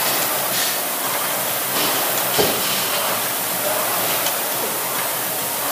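Two air-resistance rowing machines being rowed hard, their fan flywheels making a steady whooshing hiss, with a single knock about two and a half seconds in.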